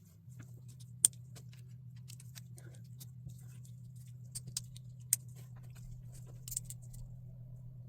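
Plastic LEGO pieces clicking and clattering as they are handled and snapped together: scattered sharp clicks, the loudest about a second in, over a steady low hum.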